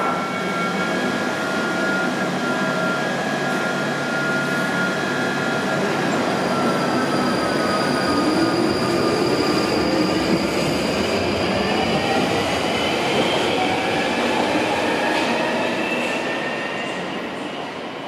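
London Underground Northern line 1995 Stock tube train pulling out of the platform, its traction motors whining and rising in pitch as it accelerates over the running noise of wheels on rails. It fades as it draws away near the end.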